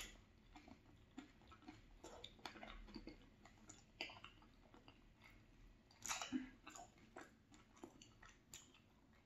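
Faint chewing of a mouthful of poutine (fries, gravy and shredded cheese): scattered small mouth clicks, a little louder about six seconds in.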